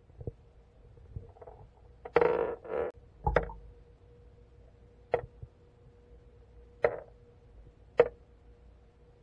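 Weighted soft plastic lures dropped into a bathtub test tank, heard through an underwater camera: a short splashy burst about two seconds in, then a few sharp knocks spaced one to two seconds apart, over a faint steady hum.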